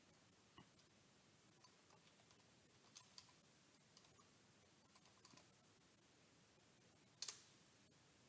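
Near silence broken by faint, scattered clicks of a computer mouse and keyboard, with one sharper click about seven seconds in.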